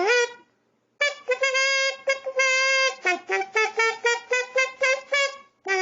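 Red Sing-A-Tina kazoo played with a buzzing tone: a quick melodic phrase of short notes with a few held longer, then a new held note starting near the end.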